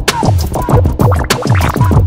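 Background electronic music with a fast, even beat of deep falling drum hits and sharp clicks.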